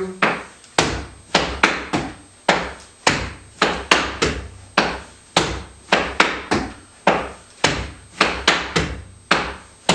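Shoes stepping and stamping on a wooden floor in flamenco tangos marking footwork: a run of sharp knocks, about two to three a second, in an uneven dance rhythm.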